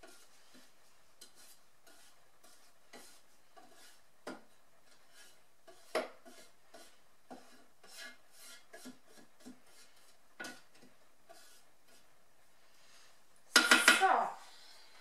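Spatula scraping and knocking against the inside of a Thermomix's stainless steel mixing bowl, pushing chopped herbs down from the sides: scattered light clicks and scrapes, with a louder clatter of several knocks near the end.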